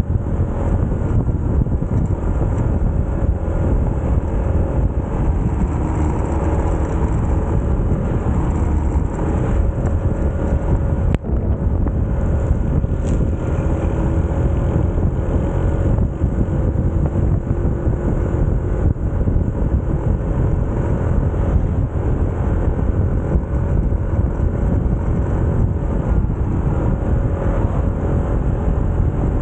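Motorcycle riding along, its engine running steadily under heavy low wind rumble on the microphone, with the engine pitch rising slowly for a few seconds in the middle. A single sharp click comes about eleven seconds in.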